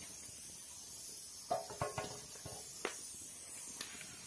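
Faint steady hiss from a wood fire under a simmering wok, with a few soft clicks and knocks.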